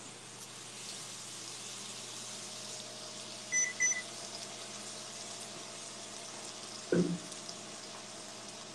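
Wagyu steaks sizzling steadily in hot oil in a non-stick frying pan. Two short electronic beeps come a little over three seconds in, and a dull thump about seven seconds in.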